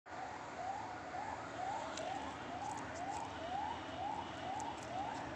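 An electronic siren sounding a fast rising whoop, repeating about twice a second, over a steady background hum.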